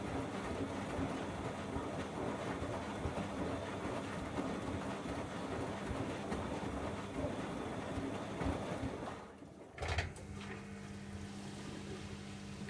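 Bosch Logixx 8 washing machine's drum tumbling a load of towels, a steady rumble with water sloshing. About nine seconds in the drum stops, there is a click, and a steady hum starts.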